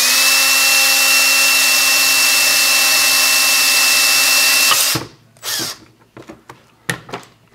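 Milwaukee M18 cordless drill running at full speed with a steady whine, stopping abruptly about five seconds in. A few short clicks and knocks follow as it is handled.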